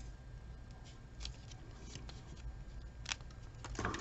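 Faint paper-craft handling noises: a few light clicks and rustles as a roll of glue dots and a small paper tag are handled, with a sharper tick about a second in and a few more near the end as the tag is pressed onto a paper box.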